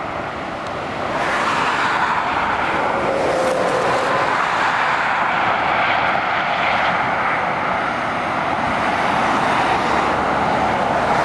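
Steady road traffic noise from a Mercedes-Benz coach and cars approaching along a dual carriageway: an even rush of tyres and engines.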